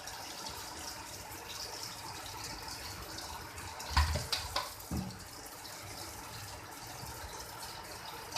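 Kitchen tap running while plastic fridge trays are washed under it, with a few sharp knocks about four to five seconds in.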